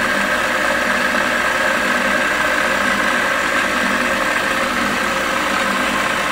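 KitchenAid Heavy Duty stand mixer motor running with a steady hum, driving a fettuccine cutter attachment as a sheet of fresh pasta dough is fed through and cut into strands.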